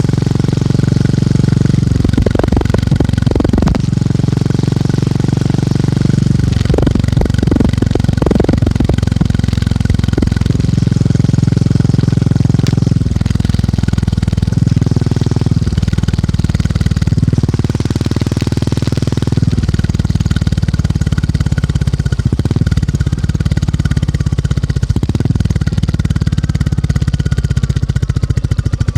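Motorcycle engine and exhaust thumping while riding, a fast steady pulse whose note rises and falls several times with throttle and gear changes.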